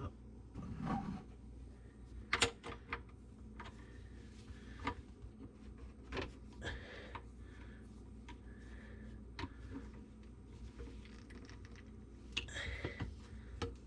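Scattered clicks, taps and knocks of hand work tightening a pipe or hose connection on a garbage disposal under a kitchen sink, over a faint steady low hum.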